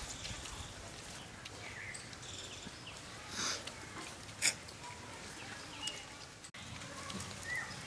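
Quiet rural outdoor ambience with a few short bird chirps. Two brief sharp noises come about a second apart midway through.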